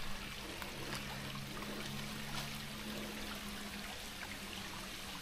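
A small forest stream trickling steadily, with a low steady hum underneath and a few soft footfalls on the rocky trail.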